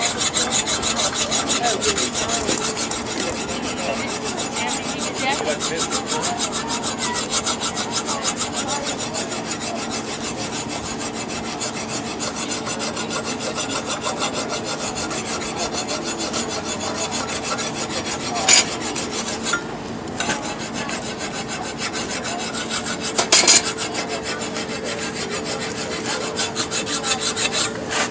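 Brass-bristle wire brush scrubbed rapidly back and forth over hot steel, a steady scratchy rasping, with a short break about two-thirds of the way through and two sharp knocks. Brushing the steel at about 500 degrees leaves a gold brass tint on it.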